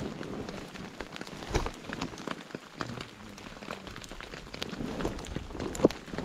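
Rain falling into puddles and onto sodden ground: a steady soft hiss with scattered sharp drop ticks at irregular intervals, one louder drop near the end.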